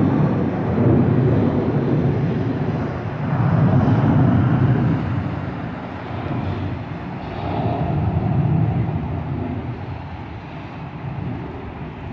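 Jet airliner passing overhead, its engines making a deep, noisy rumble that swells and ebbs and fades near the end.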